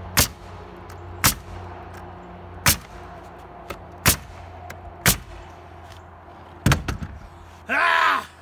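Pneumatic nailer driving nails through OSB roof sheathing: six sharp shots about a second apart, then a quick few more, over a steady low hum. Near the end a man gives a loud shout.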